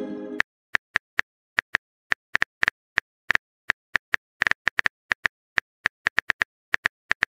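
Simulated phone-keyboard typing sounds from a texting-story app: a run of short, sharp key-tap clicks at an irregular pace of a few per second. The tail of a pitched message chime fades out in the first half-second.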